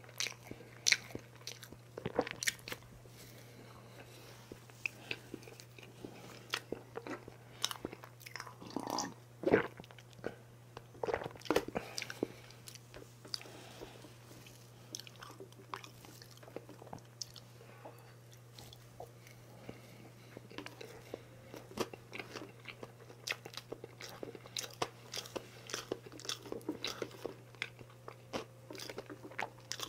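Close-miked eating of a layered chocolate cake: chewing and crunching in short irregular mouthfuls, with spoon sounds as he digs into the cake. A steady low hum runs underneath.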